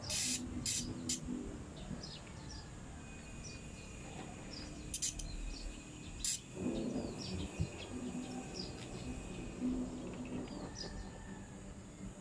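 Small birds chirping over and over, short high falling chirps. A few brief bursts of hiss come near the start and again about five and six seconds in.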